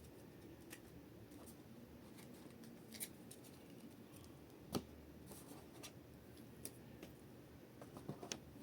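Quiet handling of trading-card packs and cards: scattered light clicks and scratches, with one sharper click about halfway through and a run of small ticks near the end.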